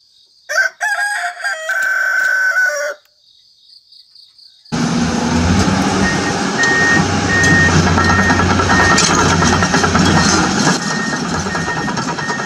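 A rooster crows once. Then, about five seconds in, a steady mechanical whirring with a low hum starts, with a high beep repeating for a few seconds, from a Huina remote-control toy excavator working.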